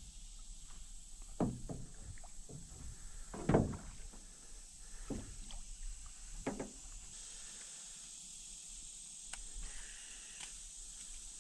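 A few irregular hollow knocks and thumps from a small aluminium jon boat on the water, the loudest about three and a half seconds in.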